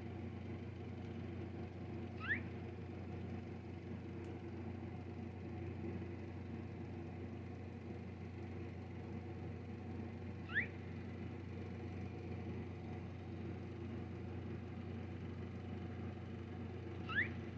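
Baby squirrel giving three short, rising squeaks several seconds apart, the odd noises it started making while eating. A steady low hum runs underneath.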